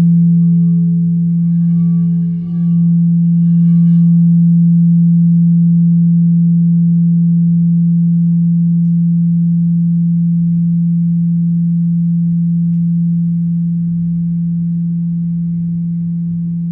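A sustained low ringing tone, with faint higher overtones that die out about four seconds in. It dips briefly about two and a half seconds in, then slowly fades.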